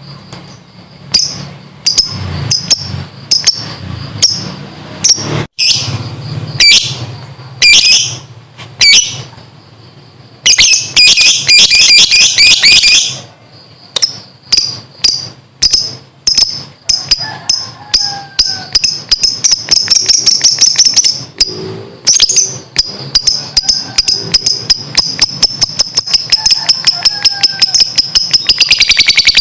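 Lovebird calling: separate shrill squawks at first, then a long run of fast repeated chattering notes (the 'ngekek' trill) that speeds up toward the end.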